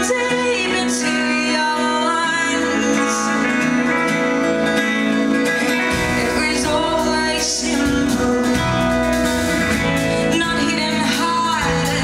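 Live song: a woman singing to her own strummed acoustic guitar. About halfway through, a deep low end joins the music.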